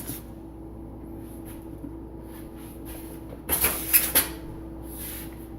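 Handling noise of parts and packaging being moved and set down: a few faint clicks, then a cluster of knocks and rustles about three and a half to four seconds in, over a faint steady hum.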